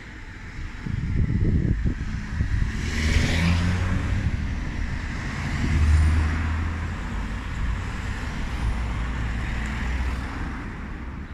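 Road traffic: cars passing along the street, each swelling and fading, over a steady low rumble.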